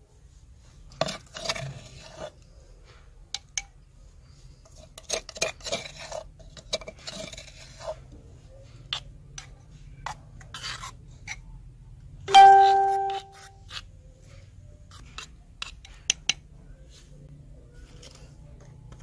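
Steel spoon scraping and clinking against the mortar and a clay bowl while stirring pounded herbs into yogurt, with scattered clicks and scrapes. About twelve seconds in comes one loud ringing clink that dies away in under a second.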